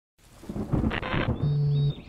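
Intro sting for a news segment: a noisy rumbling whoosh swells over the first second, then a short steady low synthetic tone with a faint high ring sounds and cuts off just before two seconds in.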